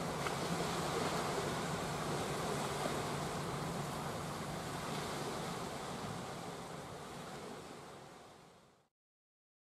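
Small waves lapping and washing onto a pebbly tidal shore in a steady wash, with a faint low hum underneath. It fades out near the end into silence.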